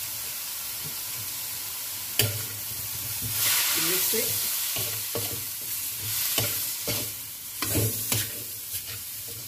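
Metal spatula stirring and scraping chicken and vegetables in a kadai while they sizzle in hot oil, with curry and chili powder being mixed in. A sharp clank of the spatula against the pan about two seconds in, then repeated scrapes and knocks over the steady sizzle.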